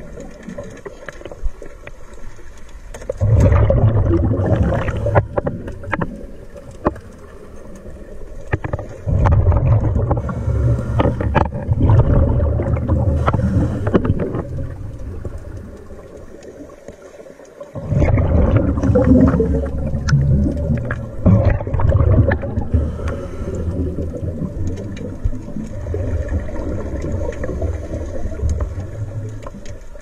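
Underwater, a scuba diver's regulator breathing: exhaled air bubbling out in long bursts of a few seconds, with quieter gaps between breaths.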